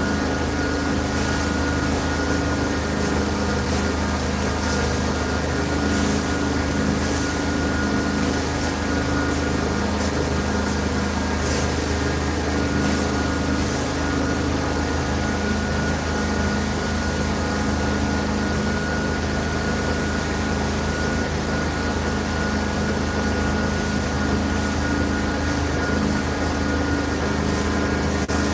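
Carpet-cleaning extraction machine running, a steady engine-and-vacuum drone: a low hum with a thin constant whine above it and brief hissing surges now and then.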